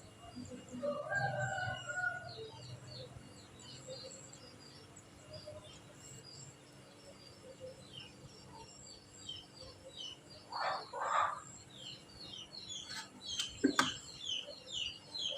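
Birds chirping in quick short notes, busier in the last few seconds, with a pair of louder calls from chickens about ten seconds in and a sharp knock near the end.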